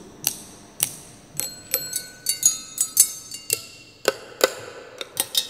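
Small glass and metal objects on a table tapped with a thin rod: a run of sharp ticks, then clinks that ring on at several high pitches like small bells.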